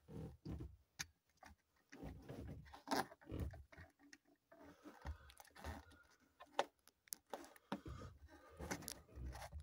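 Irregular handling noise: scattered knocks, clicks and rustles as the phone that is filming is moved about and set in place.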